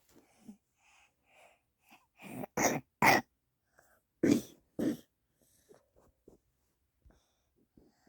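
Sneezing: a run of about five short, sudden sneezes, starting about two seconds in and ending near five seconds.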